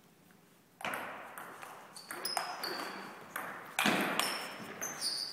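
Table tennis ball clicking off paddles and the table in a fast rally, a few bounces ringing with a short high ping. The first hit comes about a second in, and the loudest comes near the four-second mark.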